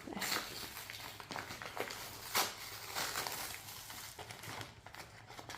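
Packages and cardboard boxes being handled and shuffled: soft rustling with scattered light knocks and clicks, one sharper click about two and a half seconds in.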